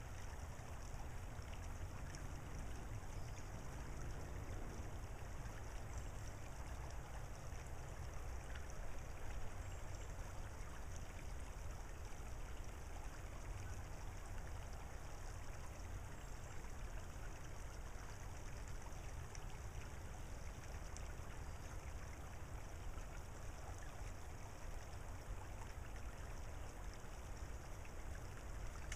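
Shallow creek trickling over gravel, a steady soft water sound with a low rumble underneath.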